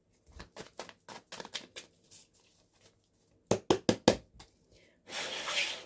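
Tarot cards and their recharging stand being handled on a table. There is a run of light taps and clicks, then four sharper knocks about three and a half seconds in, then a brief papery rush of cards near the end.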